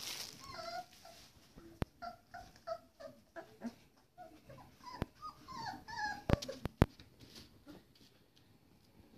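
Four-week-old Pitsky (pit bull–husky cross) puppies whining and yelping in many short, high, bending cries over the first seven seconds. A few sharp knocks come in among them, once about two seconds in, once around five seconds, and three close together around six and a half seconds, the last the loudest.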